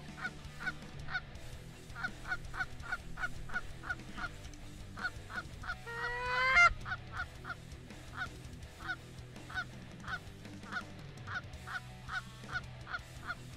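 Canada geese honking: short honks repeating steadily, about two or three a second, with one louder, drawn-out call rising in pitch about six seconds in.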